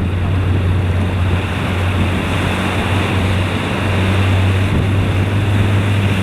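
Strong wind on the microphone over rushing water and waves while a spinnaker sailing boat runs downwind, with a steady low hum underneath.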